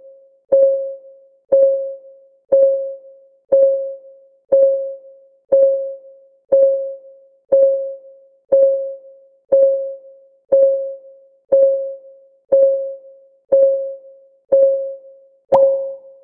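A countdown timer's ticking clock sound effect: an even tick about once a second. Each tick is a short pitched click that fades quickly. Near the end the ticks turn sharper and brighter.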